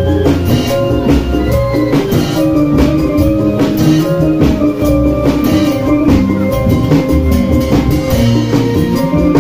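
Obrog street ensemble playing: wooden sticks beating plastic-barrel drums in a steady driving rhythm, with sharp metallic strokes and a running pitched melody on top.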